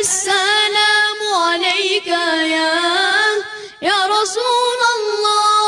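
Young boys' voices singing a devotional song praising the Prophet Muhammad, drawing out long ornamented notes with vibrato, with a short break for breath a little under four seconds in before the next phrase begins.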